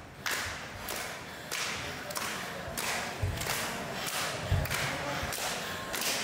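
Dance troupe on a wooden floor: regular noisy bursts, about one every 0.6 s, with a few low thuds of feet on the boards.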